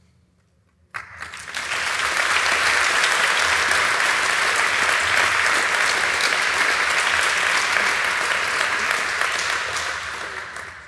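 Audience applause at the end of a talk: it breaks out suddenly about a second in, swells quickly to a steady level, and begins to die away near the end.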